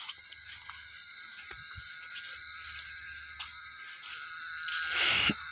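Steady chorus of night insects, several high-pitched trills with a pulsing texture, and a louder rustling swish about five seconds in.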